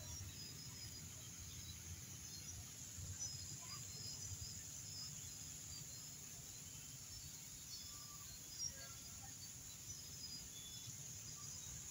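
Faint outdoor evening ambience: a steady low rumble with scattered short, high-pitched chirps, and one brief soft tap a little past two-thirds of the way through.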